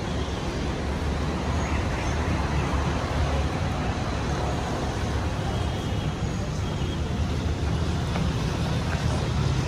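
Steady street ambience dominated by a continuous low rumble of road traffic, with no single event standing out.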